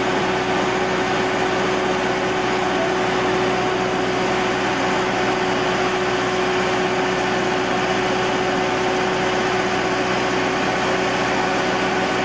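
Standing steam locomotive giving off a steady hiss with a constant whine running through it.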